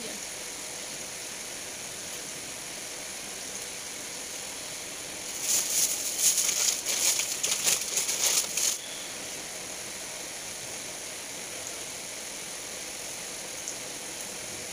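Steady hiss, with about three seconds of rapid scratchy rustling in the middle.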